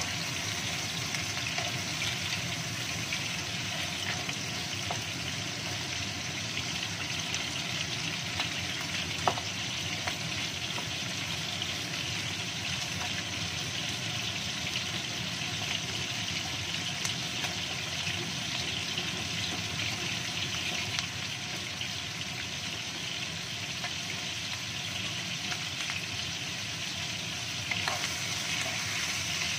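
Chicken pieces sizzling as they fry in oil in a non-stick wok, stirred with a wooden spatula, over the steady hum of a kitchen extractor fan. One sharp knock about nine seconds in.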